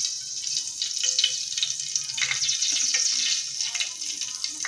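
Coconut oil heating in a pan, sizzling steadily with scattered small crackles.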